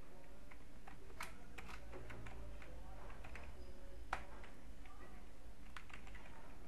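Computer keyboard keystrokes: a scattered run of quick key clicks, thickest in the middle, over a steady low electrical hum.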